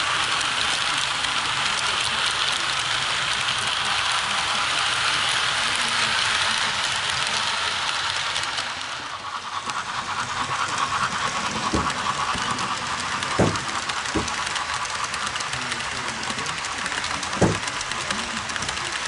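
Model train running along the layout's track: a steady rattling hiss of wheels rolling on rails, with a few sharp clicks in the second half.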